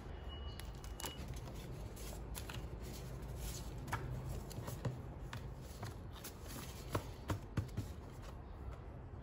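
Paper refill sheets rustling and sliding as they are handled and laid onto the metal rings of a six-ring binder, with scattered soft taps and clicks.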